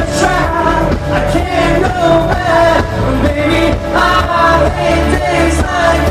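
Live rock band playing through stage amplification: drums, guitars and keyboard, with singing.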